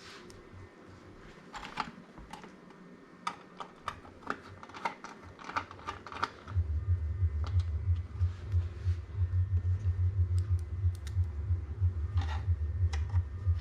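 Small, sharp clicks and clinks of screws, standoffs and tools being handled inside a computer case. About halfway through, a loud low fluttering hum starts and keeps going under the clicks.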